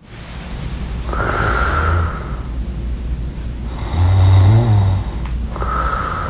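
A man snoring loudly in his sleep: three long snores, the middle one, about four seconds in, the loudest.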